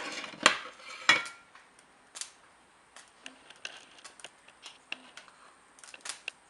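Kitchen handling noises during food preparation: a brief rustle, two sharp clicks or knocks in the first second and a half, then scattered light taps and clicks.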